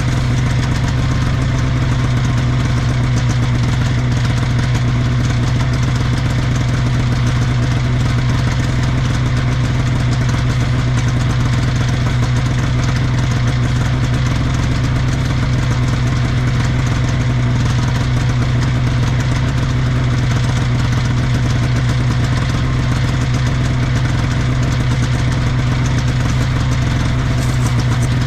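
1979 Scorpion Whip TKX 440 snowmobile's Cuyuna two-stroke engine idling steadily, left running while the sled sits stuck in the snow.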